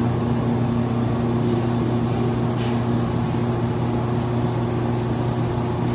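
A steady low machine hum with a buzzing tone, unchanging throughout.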